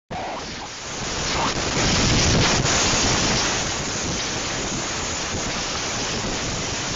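Hurricane-force wind and driving rain blasting the microphone in a dense, steady rush, gusting louder about two seconds in.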